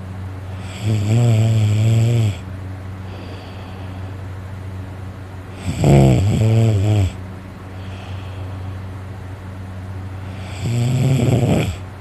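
A sleeping person snoring heavily: three loud, rattling snores about five seconds apart, each lasting a second or so, with quieter breathing between them.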